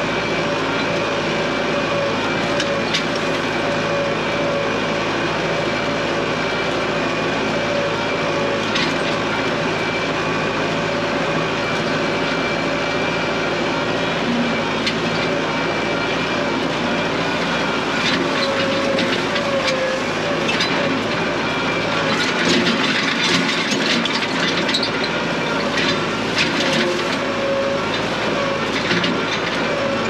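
Compact tractor's engine running steadily while it drives over a rough dirt trail, with rattles and clanks from the loader and frame as it goes over bumps, more of them in the second half.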